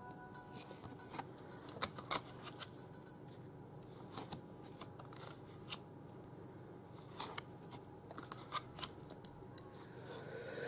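Faint handling of oracle cards: soft scrapes and scattered sharp clicks as cards are slid off the front of the deck and tucked behind it, over a faint steady hum.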